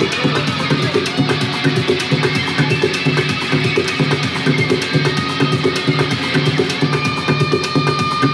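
Live electronic noise music from a laptop rig with electric guitar: a dense wall of sound over a regularly pulsing low tone, with a fine crackle on top. A held high tone comes in near the end.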